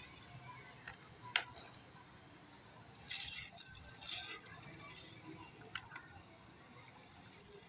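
Hand-pumped bottle pressure sprayer in use, its pressure running low: two short hissing bursts about three seconds in, with a few light clicks around them.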